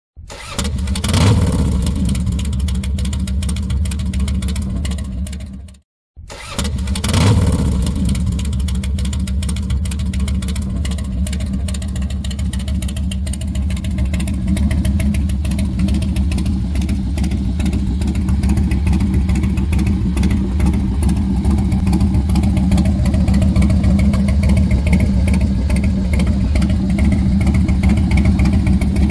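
Harley-Davidson Night Train's 88-cubic-inch V-twin, fitted with a Vance & Hines 2-into-1 Pro Pipe exhaust, fired up and idling. The sound cuts out about six seconds in, then the engine fires again and idles steadily.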